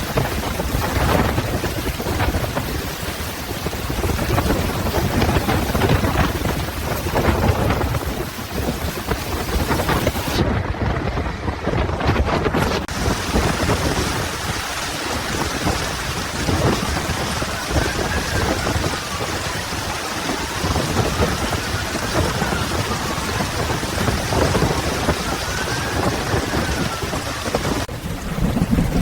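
Heavy rain pouring down with rolls of thunder. In the second half a faint tone rises and falls several times.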